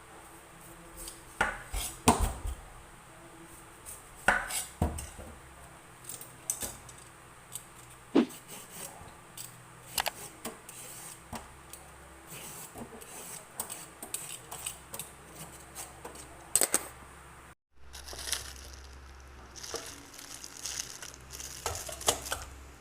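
Kitchen clatter: utensils and cutlery clinking and knocking against pots and dishes at irregular intervals while food is prepared, with a brief break about two thirds of the way through before the clatter resumes.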